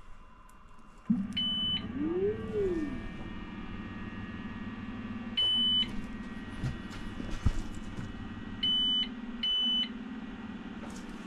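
Elegoo Saturn 4 Ultra resin 3D printer starting a print: a steady motor hum starts about a second in, rising and falling in pitch briefly, and four short high beeps sound over it.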